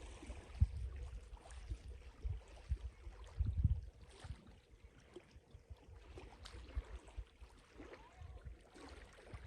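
Irregular low rumbling gusts of wind on the microphone, over faint water lapping and small ticks, with one stronger gust about three and a half seconds in.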